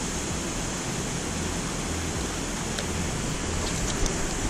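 Steady rush of a fast-flowing river, an even hiss without pitch, with a couple of faint clicks near the end.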